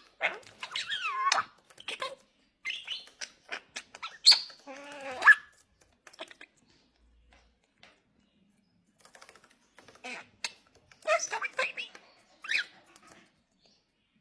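A pet parrot vocalizing in bursts of varied, gliding calls and chatter, with a pause of a few seconds in the middle.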